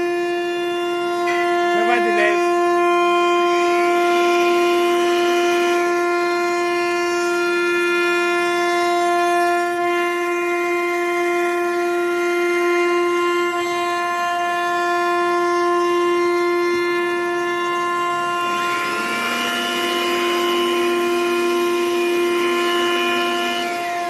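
ART 1325T CNC router running with a steady high whine from its spindle, while its drive motors whine up and down in pitch as the gantry moves, about four seconds in and again near the end.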